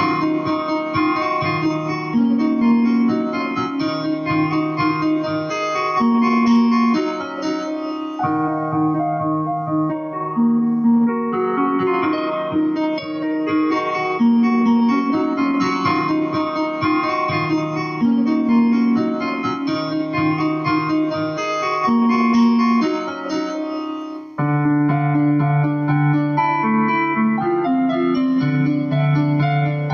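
Instrumental music led by a keyboard playing sustained chords over a repeating bass line. About 24 seconds in the music dips briefly, then comes back with a denser pattern of notes.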